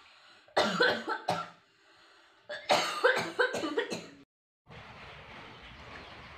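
A person coughing in two fits: a few coughs about half a second in and a longer run of coughs about two and a half seconds in. Near the end the sound cuts to a steady background hiss.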